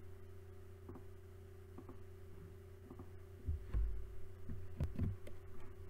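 Steady low electrical hum with a few faint clicks, and some low thumps about halfway through.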